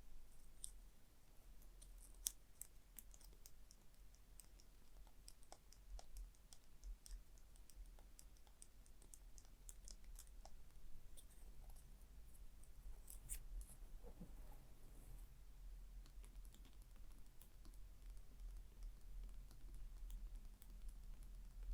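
Gentle tapping and light scratching on a small object, heard as faint, irregular, crisp clicks over a low steady hum.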